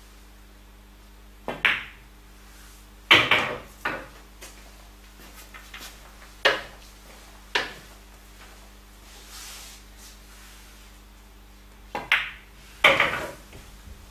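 Pool balls being played: twice, a quick double click of cue tip on cue ball and the cue ball striking an object ball, followed by a louder rattling knock as the ball drops into a pocket. A few single ball clacks fall in between.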